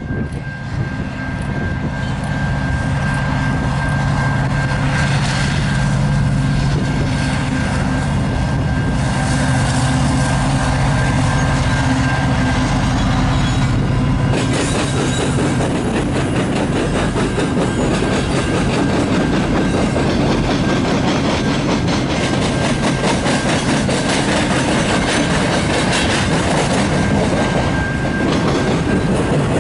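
EMD diesel-electric freight locomotives (an Illinois Central SD70 leading SD70, SD60 and GP38-2 units) pass with their engines running. About halfway through, the engine sound gives way to the freight cars rolling by with a steady clickety-clack of wheels over the rail joints.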